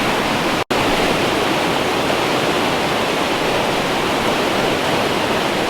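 Waterfall pouring into a pool, a loud, steady rush of falling water, with a split-second break less than a second in.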